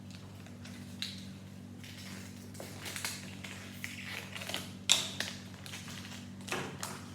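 Small toy packaging being handled: scattered crinkles and light taps, with one sharp click about five seconds in, over a steady low hum.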